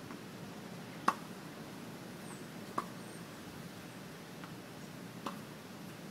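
Tennis balls struck by rackets in a baseline rally: three sharp pops, about a second, almost three and five seconds in, the first the loudest, with a fainter tap just before the last.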